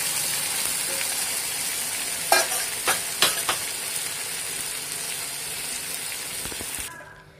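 Rice, fried pointed gourd and freshly added milk sizzling steadily in a hot pan while a wooden spatula stirs, with a few light clicks of the spatula between about two and three and a half seconds in. The sizzle cuts off suddenly near the end.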